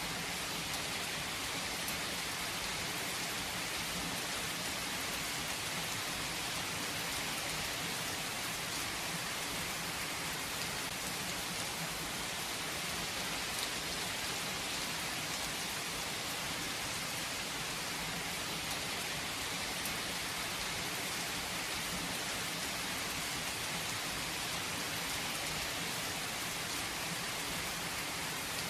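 Steady rain falling on surfaces, an even unbroken hiss of many drops.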